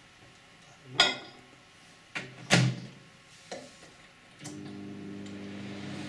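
Logik countertop microwave oven being shut and started: a few sharp knocks and clunks of the door and manual dial, then, about four and a half seconds in, the oven starts running with a steady hum.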